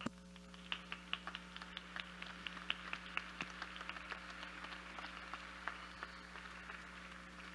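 Audience applauding, with individual claps standing out; the clapping starts just under a second in and thins out toward the end. A steady electrical hum runs underneath.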